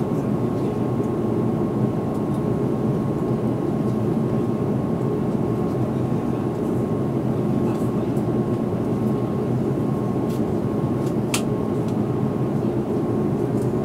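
Airliner cabin noise in flight: the steady roar of the engines and rushing air, with a faint steady whine running through it. A single brief click about eleven seconds in.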